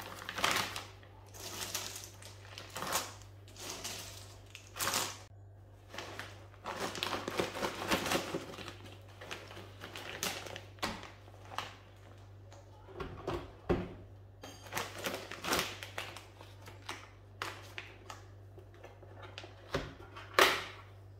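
Dry, brittle dehydrated banana chips clattering and rattling as they are dropped into plastic vacuum-seal bags, with the bags crinkling: irregular clicks and rustles, with one louder knock near the end.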